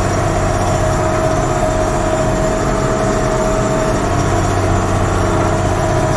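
Ford TW-15 six-cylinder diesel tractor engine running steadily under load while pulling a field cultivator, heard from inside the cab, with a steady whine held above the engine's drone.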